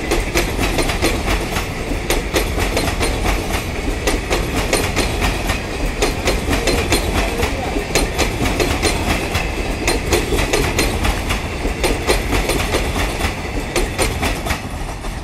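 Indian Railways express passenger coaches passing at speed, their wheels clattering over the rail joints in a dense run of clicks over a steady rolling rush. It eases off slightly near the end as the last coaches go by.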